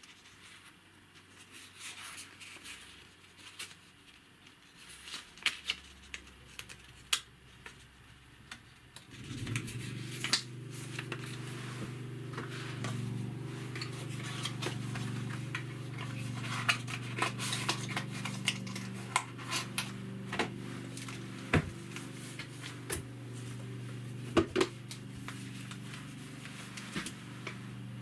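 Clicks and knocks of a portable Bluetooth speaker and its packaging being handled. A steady low hum joins about nine seconds in.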